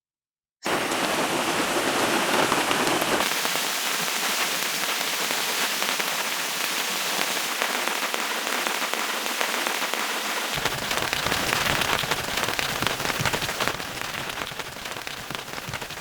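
Heavy rain falling steadily, a dense even patter of drops, cutting in suddenly about half a second in.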